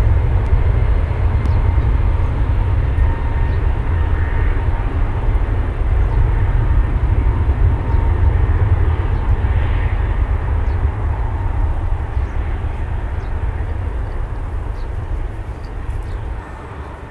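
Airbus A380-841's four Rolls-Royce Trent 970 jet engines running at taxi power: a steady heavy low rumble with a faint high whine, easing off somewhat near the end.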